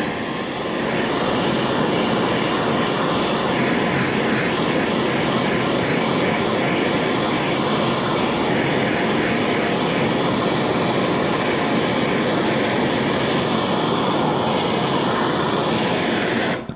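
Handheld gas torch flame running with a steady hiss, heating the steel trunk lid to melt a stick of body solder into a rust hole. It cuts off sharply shortly before the end.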